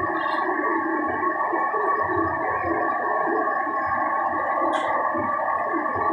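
A steady droning hum holding several fixed pitches, with a couple of brief faint ticks, one near the start and one about five seconds in.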